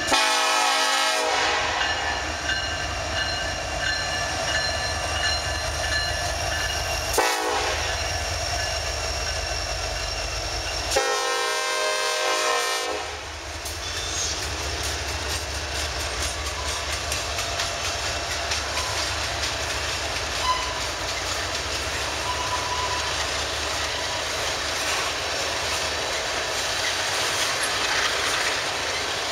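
Diesel locomotive air horn sounding a chord three times: a long blast, a short one about seven seconds later, and another long one around eleven seconds in, its pitch wavering as it passes. The train then rolls by with a steady rumble and clatter of wheels on rail.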